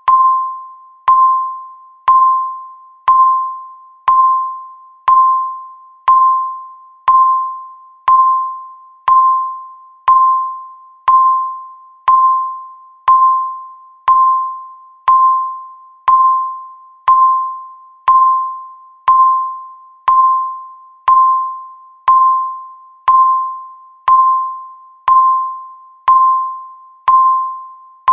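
Countdown timer's beep, one a second: a single bell-like tone that strikes and fades before the next, repeating steadily.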